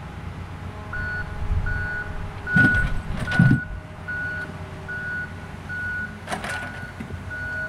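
A vehicle's reversing alarm beeping steadily at one pitch, about two beeps a second, starting about a second in, over a low rumble. Two louder clunks come about two and a half and three and a half seconds in.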